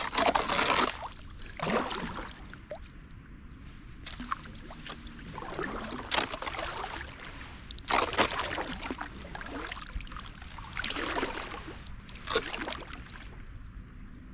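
Kayak paddle strokes: the blade dipping and pulling through the water with splashes and trickling drips, at irregular intervals of one to a few seconds.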